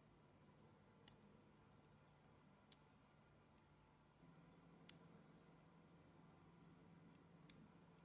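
Small silver magnet balls snapping together as clusters are joined by hand: four sharp, separate clicks, a second or two apart.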